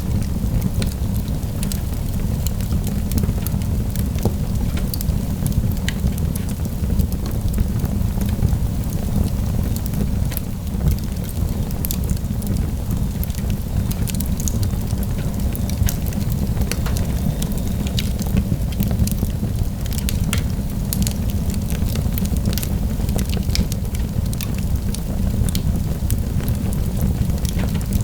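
Wood fire burning in a fireplace, crackling with many sharp pops over a steady low rumble.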